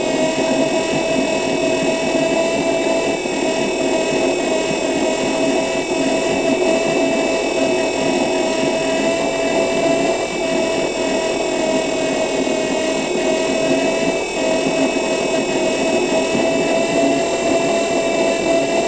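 Electric city bus running, giving a steady high electric whine made of several held tones over a low rumble.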